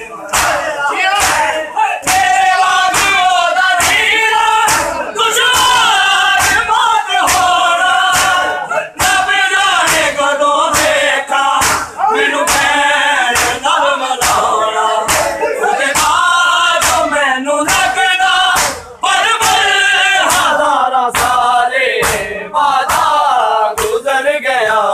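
A crowd of men chanting a noha together over rhythmic open-hand slaps on bare chests (matam). The slaps land at a steady beat of roughly one a second.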